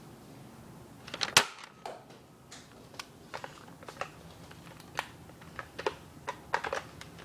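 Nerf foam-dart blasters being fired and worked: a string of irregular sharp clicks and snaps, the loudest about a second and a half in.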